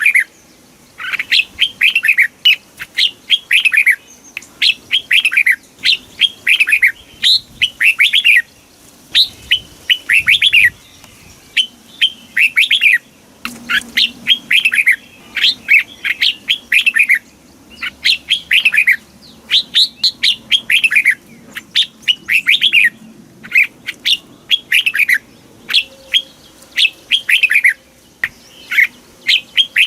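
Red-whiskered bulbul singing: a run of short, bright whistled phrases, one after another with brief gaps between them.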